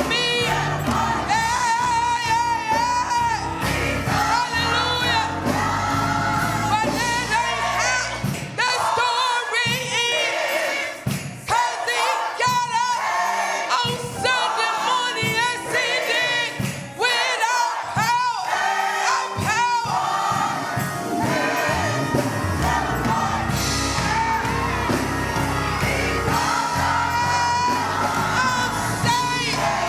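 Church choir singing a gospel song over instrumental accompaniment, with sustained low bass notes beneath the voices.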